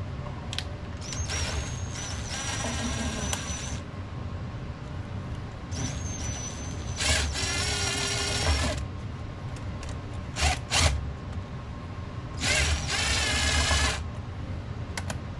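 Cordless driver run in several short bursts, each a motor whine with a buzz, tightening the worm-drive screw of a hose clamp around a freshly glued segmented wooden ring.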